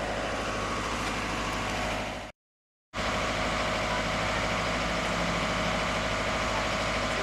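Steady hum of an idling vehicle engine, cut to silence for about half a second a little over two seconds in.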